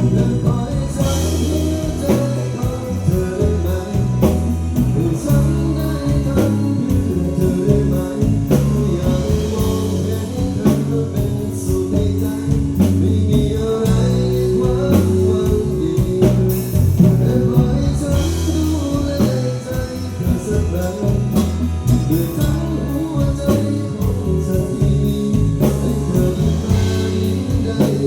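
Live band performance of a song: a singer's voice over guitar and a strong bass line.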